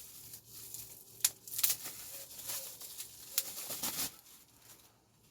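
Rustling and light clicks of hard plastic parts and packaging being handled while an 18-volt battery pack is unpacked from its case, with a few sharper knocks in the middle; the handling stops near the end.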